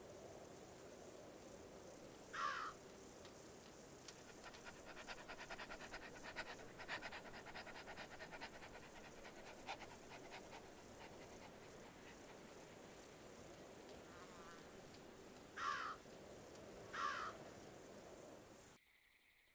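Bush ambience of insects: a steady high-pitched insect drone with a stretch of fast clicking in the middle. Three short chirping calls come a few seconds in and twice near the end, and the whole sound cuts off suddenly.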